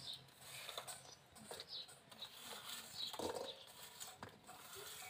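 Quiet clinks and patter of jaggery pieces being pushed off a steel plate into a kadai, with a small clatter about three seconds in. Birds chirp faintly in the background.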